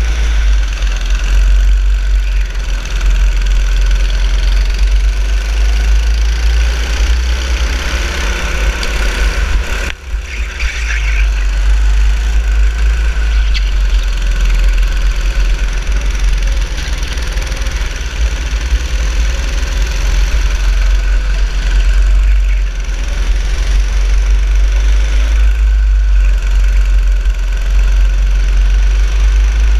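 Go-kart engine running flat out, heard from on board the kart, its pitch rising and falling with the throttle through the corners. The sound drops briefly about ten seconds in.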